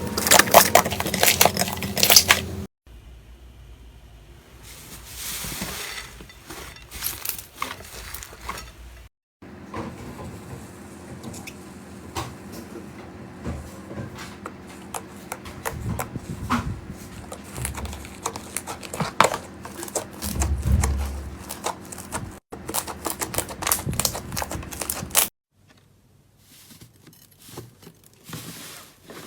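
Slime being pressed and squished by hand, giving many sharp clicks, pops and crackles. It comes in several short segments that cut off abruptly, and the first segment is the loudest.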